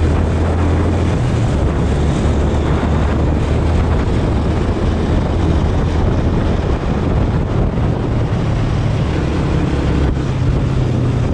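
Motorcycle engine running steadily under way, with wind buffeting the microphone; the engine note rises a little about nine seconds in.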